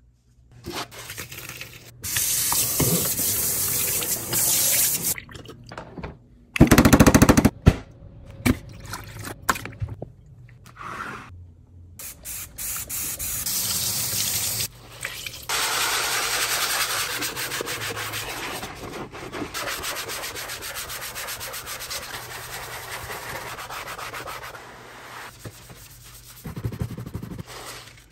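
A scrub sponge rubbing and scrubbing a kitchen sink, in several short cuts, with tap water running over the sponge and into the sink.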